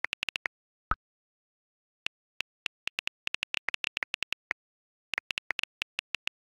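iPhone on-screen keyboard clicks, many short taps in irregular runs as a message is typed. About a second in, one duller pop as a message is sent.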